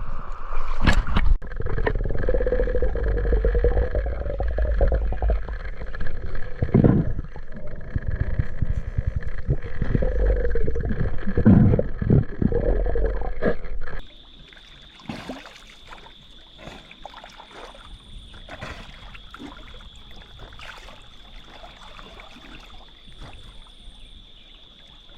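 River water sloshing and gurgling close to the microphone, with a heavy rumble and a few knocks. After about fourteen seconds it cuts suddenly to a much quieter passage: a steady high-pitched drone with scattered light clicks.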